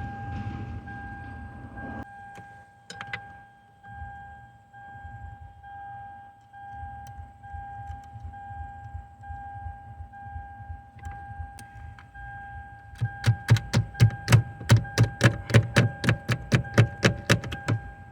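A car's electronic warning chime pulsing steadily with one even tone. Near the end comes a loud run of rapid clicks, about five a second.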